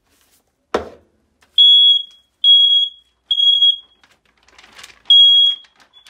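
A knock at the ceiling smoke alarm about a second in, then the alarm's piezo horn sounding high-pitched beeps in the temporal-three pattern: three short beeps, a pause, and a fourth beep starting the next round. The alarm is responding to canned test smoke, a pass on its functional test.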